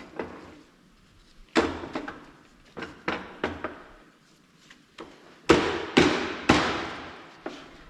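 Metallic knocks and clanks as a heavy, newly assembled ZF 16 S 221 truck gearbox assembly is handled and turned on a metal workbench. There are several sharp knocks, each ringing briefly. The three loudest come about half a second apart, a little past halfway.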